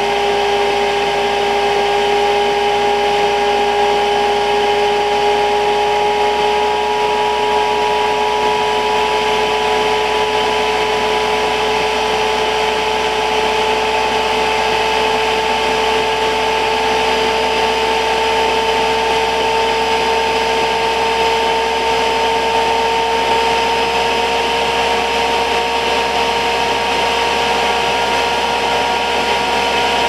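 Chinese diesel heater's combustion-air fan motor running with a steady whine that slowly rises in pitch as the fan speeds up from about 3,400 to 4,000 rpm during the start-up preheat stage.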